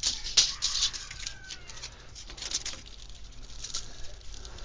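Close handling noise: irregular rustling and clicking, with a sharp click about half a second in, as a steel tape measure is pulled out and held across the boat frame.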